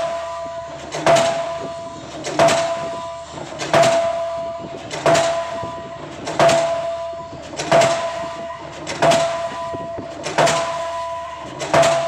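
K35 diesel pile hammer driving a PHC concrete pile, striking a steady blow about every 1.3 seconds. Each blow is a sharp bang followed by a ringing tone that fades before the next.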